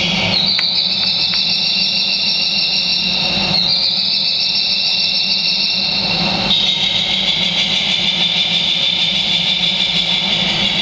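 Bird-deterrent speaker system in a loading bay blaring loud, high-pitched electronic bird chirps meant to keep birds from nesting. The sound comes in three long stretches, each opening with a short upward glide, over a steady low hum.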